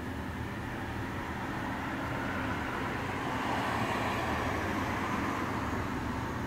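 Steady low rumble and hiss of background noise, growing a little louder around the middle.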